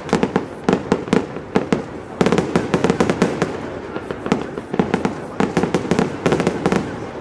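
Aerial fireworks bursting overhead: dense runs of sharp bangs and crackling from crackle-star shells, with a brief thinning about four seconds in.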